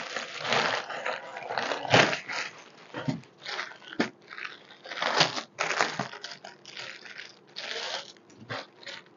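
Clear plastic garment bags crinkling and rustling in irregular bursts as clothes are handled and unpacked.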